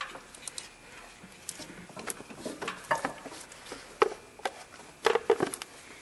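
Irregular light clicks and taps of gloved hands handling a spark plug wire and pushing its boot back onto the spark plug, with the engine not running.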